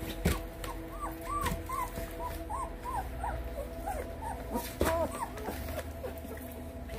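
A two-week-old Lycan Shepherd puppy whimpering in a quick string of short, high squeaks, each rising and falling, about a dozen over a few seconds, while it sits on a metal tray for the cold thermal-stimulation exercise.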